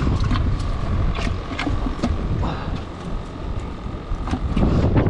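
Wind buffeting the microphone, with scattered clicks and knocks of fishing gear and a bait bucket lid being handled, and a faint steady hum that stops near the end.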